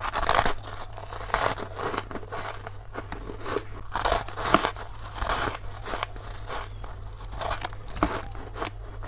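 Freezer frost being bitten and chewed close to the microphone: a run of crunchy, crackling bites, with the loudest crunches near the start and about four and a half seconds in. A steady low hum sits underneath.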